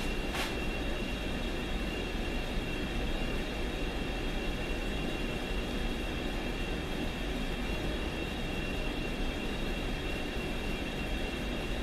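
1942 South Bend lathe running steadily under power during a thread-cutting pass on a rifle barrel, with a constant high whine from the drive and one sharp click about half a second in.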